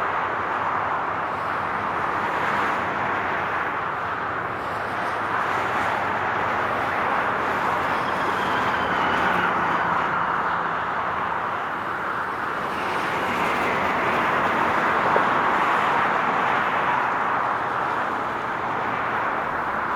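Continuous highway traffic: the hiss and rush of tyres and engines from many passing vehicles, swelling and easing as vehicles go by, loudest around the middle and again a few seconds later.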